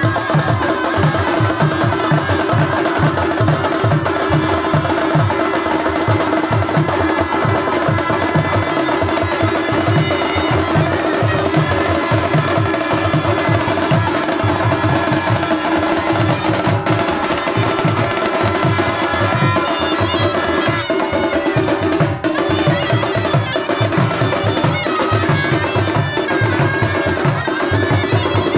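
A village band's dhol barrel drums and other drums playing a rapid, steady festival beat, with steady held tones sounding over the drumming.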